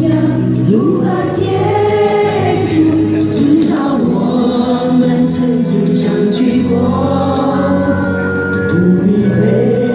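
Amateur mixed choir singing a minge folk song together, with the group's voices carrying on continuously.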